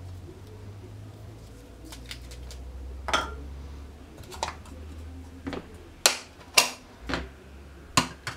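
Lab glassware and small items being handled and set down on a benchtop: about seven sharp clicks and knocks over the second half, with a low steady hum underneath.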